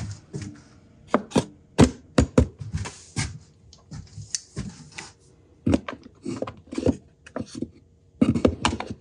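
Wood knocking on wood, with handled tools being set down: a milled plywood tray is fitted into a wooden drawer and a metal knurling tool is placed into its pockets. The sharp knocks come irregularly.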